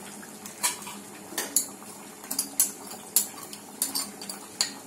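Slotted metal spatula clinking and scraping against a metal karahi as chicken, tomatoes and freshly added spices are stirred: about nine sharp, irregular clinks over a faint steady hiss from the pan.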